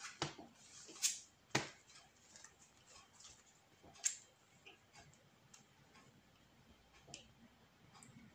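Sleeved trading cards being handled and laid on a playmat: a few scattered sharp clicks and taps, most in the first two seconds and one about four seconds in, with faint card rustling between.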